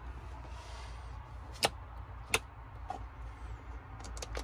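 Sharp clicks over a low steady hum: two loud single clicks about a second and a half in and a second later, then a quick run of lighter clicks near the end as the lit rocker switches on the camper's 12-volt switch panel are pressed.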